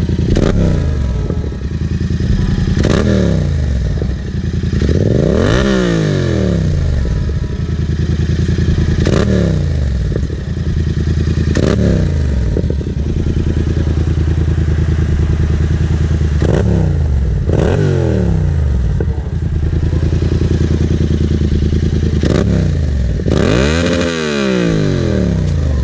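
Yamaha MT-07's parallel-twin engine, breathing through an SC-Project aftermarket exhaust, idling on the stand and blipped with the throttle about eight times. Each blip rises sharply and drops back to idle, and the largest comes near the end.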